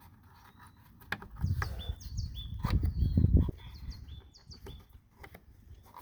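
A bird chirps over and over in short, high, hooked calls. About one and a half to three and a half seconds in, there is a louder stretch of handling noise and sharp clicks as a plastic retaining clip is worked onto a car tail light housing.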